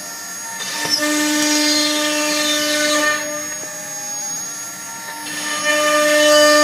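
CNC router spindle whining at a steady high pitch as its bit cuts into a wood board. The whine and cutting noise get louder about a second in, ease off around the middle, and swell again near the end.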